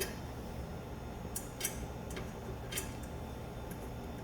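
A few small, sharp clicks and ticks at irregular moments from handling the power wire connections, over a steady low hum.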